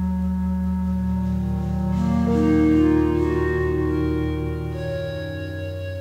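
Ambient keyboard music: sustained, organ-like synthesizer chords that shift slowly, with a new, higher chord swelling in about two seconds in and easing back near the end.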